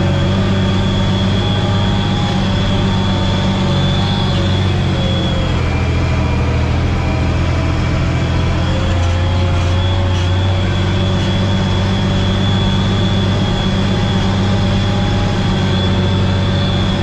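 Tractor engine running steadily under load while pulling a field harrow, heard from inside the cab, with a steady high-pitched whine over the deep engine drone.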